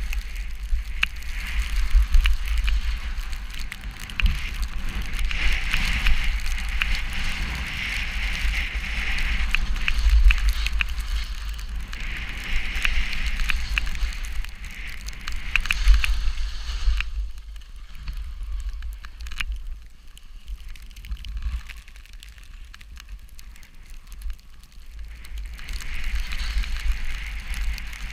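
Snowstorm wind buffeting the microphone with a steady low rumble, over a crackling hiss full of small ticks. The hiss drops away for several seconds about two-thirds of the way through, then returns.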